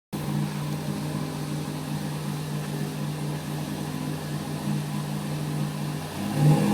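Ford Focus ST with a loud custom catback exhaust (Flowmaster Super 10 muffler) idling steadily, then starting to rev near the end.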